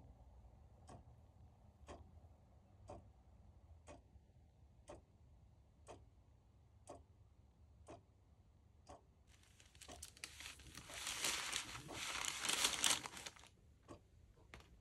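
A clock ticking steadily about once a second. A little over halfway through, a few seconds of loud paper rustling as a greeting card is slid into a paper bag.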